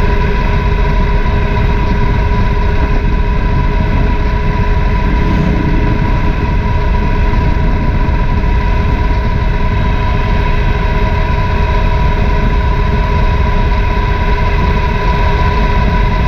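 Triumph Thunderbird LT motorcycle's 1,700 cc parallel-twin engine running steadily on the move, mixed with a dense low rumble of wind and road noise. Its pitch holds level, with no revving or gear changes.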